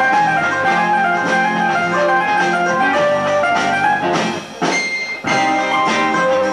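Live band playing on electric guitar, keyboards, bass and drums. The music thins out briefly about four and a half seconds in, then the full band comes back in.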